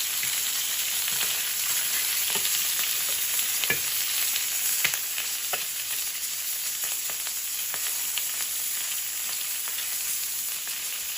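A fish frying in hot oil in a pan, a steady sizzle with scattered sharp pops and clicks.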